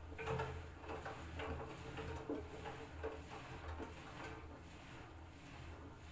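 LG F4R3VYW3WE direct-drive front-loading washing machine in the middle of a Sportswear Cold wash. The drum turns with a low, steady motor hum. Laundry tumbling inside gives soft thumps every half-second to second, easing after about four seconds.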